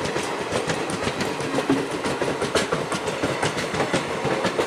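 ICF passenger coaches rolling slowly by, their wheels clicking and knocking irregularly on the track, several knocks a second over a steady rumble.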